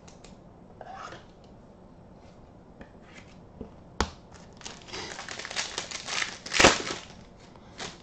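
A foil trading-card pack wrapper being torn open and crinkled. It starts with a sharp tap about halfway through, and the crinkling and ripping is loudest shortly before the end.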